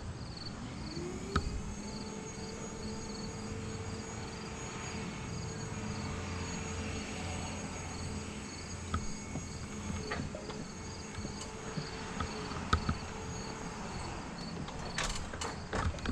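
A motor whine that climbs within the first second, holds one steady pitch for about twelve seconds, then winds down. A faint high chirp repeats about every two-thirds of a second, and a few sharp clicks come near the end.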